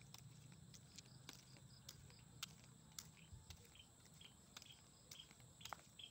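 Faint footsteps of flip-flops slapping on a concrete road, a soft click about once or twice a second. In the second half a run of short high chirps repeats quickly in the background.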